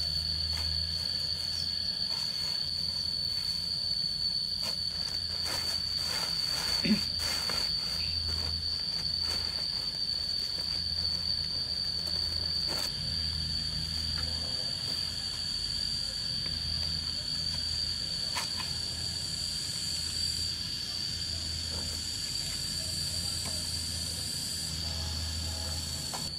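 Insects droning outdoors as one steady high, unbroken tone, over a low uneven rumble. A few clicks and a short knock come about seven seconds in.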